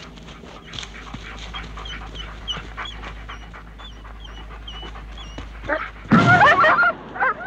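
A dog panting in quick short breaths, then whining and yelping loudly from about six seconds in.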